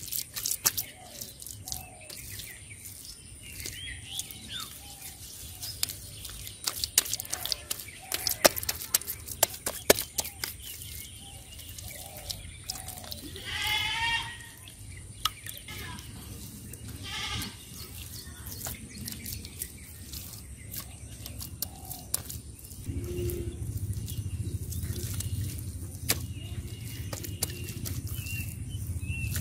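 Hands patting and smoothing wet mud, a run of sharp wet pats and clicks, with a short wavering bleat-like call about halfway through and a fainter call a few seconds later. A low steady rumble comes in during the last several seconds.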